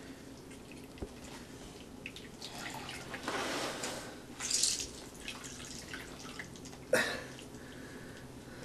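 Liquid trickling and dripping from a squeezed cloth sock into a bowl, in short uneven spells, with a sharp click about seven seconds in.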